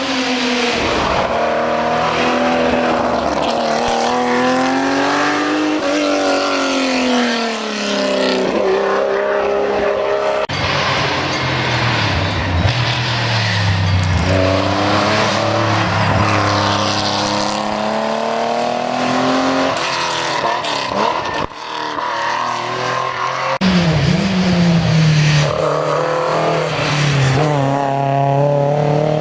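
Historic rally car engines running hard, revs climbing and dropping again and again with gear changes and lifts off the throttle. The sound changes abruptly about ten and twenty-three seconds in.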